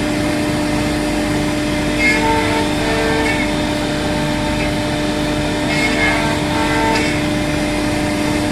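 CNC router cutting, its spindle running with a steady whine while the axis motors give short groups of changing tones that come back every few seconds as the machine moves through its passes.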